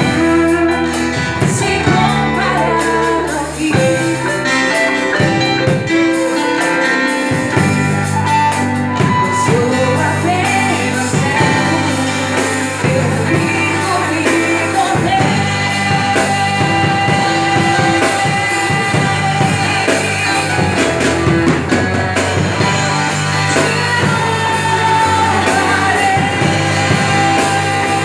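A church worship group singing a praise song, with a voice carrying the melody over a full band accompaniment with a steady beat.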